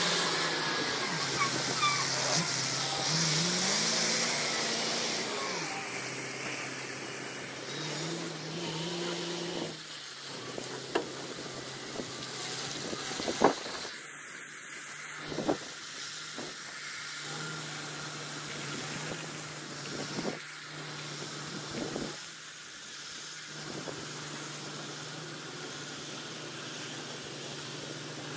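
Heavy truck's diesel engine running steadily under a haze of road and wind noise, its pitch rising and falling a couple of times in the first ten seconds. A few sharp knocks come around the middle.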